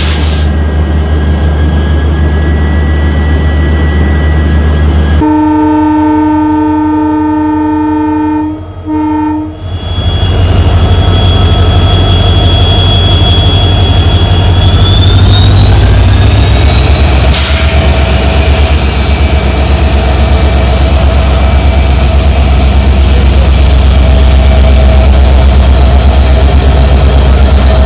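WDP4D diesel-electric locomotive's EMD two-stroke engine humming, with its multi-note horn sounding about five seconds in for roughly four seconds, briefly broken near the end. The engine then opens up as the train departs, its turbocharger whine rising in pitch around fifteen seconds in before settling into a steady loud hum and whine, with one brief sharp noise partway through.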